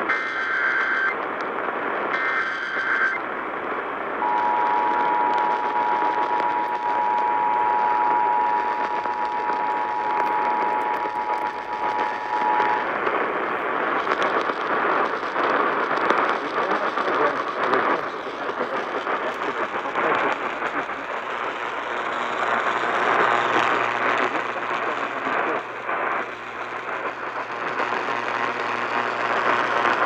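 Emergency Alert System tones from a Sangean CL-100 radio's speaker on AM. First come two short bursts of the SAME data header's two-tone warble. Then, from about four seconds in, the two-tone EAS attention signal is held steady for about nine seconds. After that it is AM static hiss with crackling.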